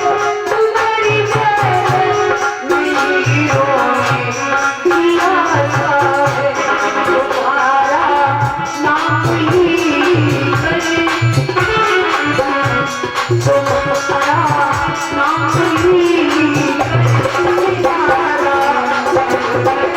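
Instrumental devotional folk music: a melody played over a steady hand-drum beat with a rattling shaker.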